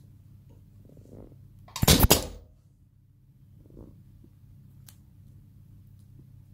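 An ultrasonic mask ear-loop spot welding machine fires once, about two seconds in: a loud burst of about half a second as the horn welds the elastic ear loop onto the mask. Faint rustling of the mask being handled comes before and after it.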